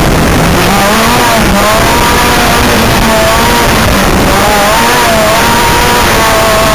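Off-road race buggy's engine heard from the cockpit under way, its revs rising and falling again and again as the driver works the throttle and gears. A constant heavy rushing noise runs underneath.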